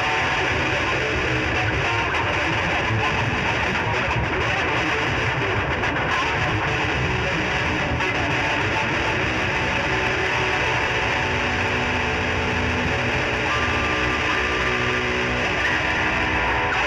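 Noisecore recording: a dense, unbroken wall of heavily distorted electric guitar noise at a steady loudness, with no breaks.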